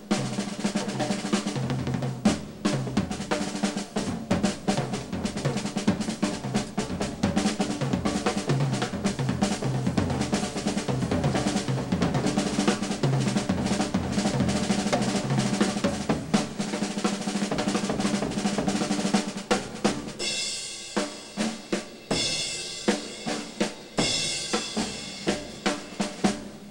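Slingerland drum kit played in a fast solo: continuous rapid rolls on the snare that move across the tom-toms, with bass drum underneath. In the last several seconds the rolls break into separate accented hits with cymbals ringing over them.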